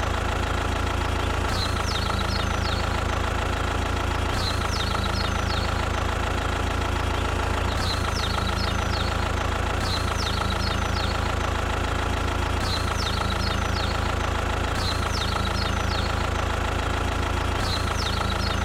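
An engine idling steadily with a low, knocking hum. A short cluster of high chirps recurs about every three seconds over it, as in a looped recording.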